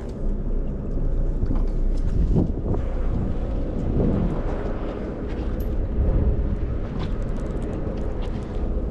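Charter fishing boat's engine running with a steady low rumble, wind buffeting the microphone, and a few small knocks.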